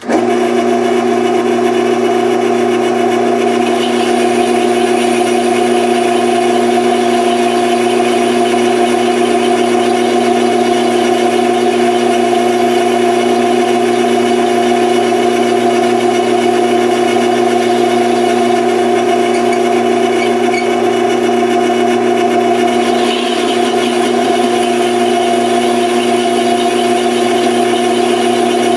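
Grizzly G0602 benchtop metal lathe starting suddenly and then running steadily at low speed, its motor and gear train giving a loud, even hum with several steady tones.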